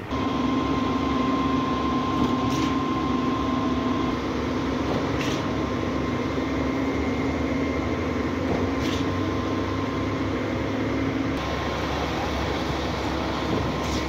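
Truck-mounted concrete boom pump running at a steady drone while it pumps concrete through its hose. A faint knock comes every few seconds.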